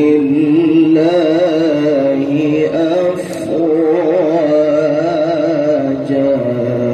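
A man reciting the Quran in the ornate melodic tilawah style, holding long melismatic notes with a wavering, trilling pitch that steps up about a second in, through a microphone.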